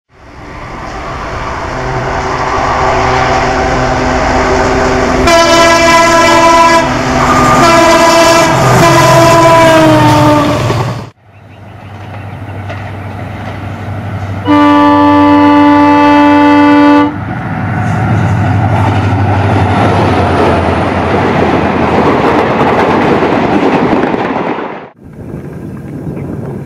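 WDG-4 diesel locomotive passing at speed with its engine and rail noise, sounding its multi-tone air horn three times, the last blast falling in pitch as it goes by. After a cut, one long steady horn blast is followed by the noise of the train passing.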